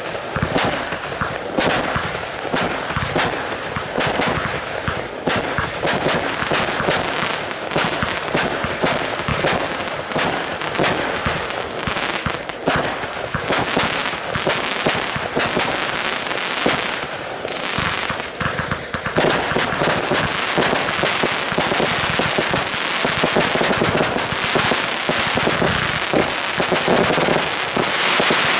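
Fireworks firing in rapid succession: launches and bursts with crackling stars, overlapping so the bangs never stop. About 19 seconds in the firing gets denser and louder, with a steady crackling hiss under the bangs.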